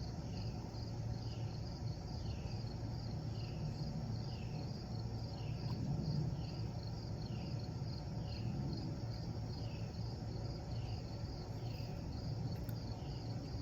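Insects chirping: a fast pulsing trill high up, with a short falling chirp about once a second. Both run over a steady low hum.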